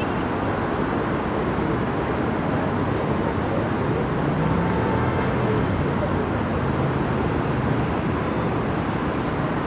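Steady city traffic noise, a constant wash without distinct events.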